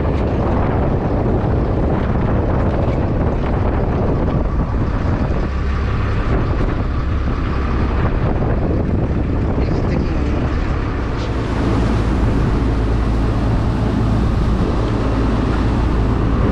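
Boat engine running steadily with the boat under way, wind and water noise over it; the engine gets a little louder about eleven seconds in.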